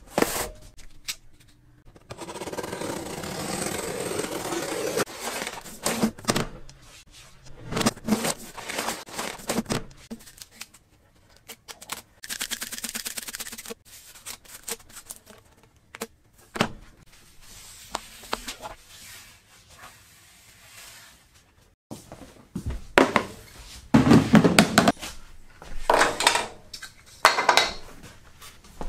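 Handling noises as a flexible magnetic sheet cover is unpacked and laid onto a cast-iron table saw top: a cardboard box scraping over the metal, the rolled sheet being handled and spread out, and small objects set down with knocks. Irregular scrapes, rustles and clunks, louder near the end.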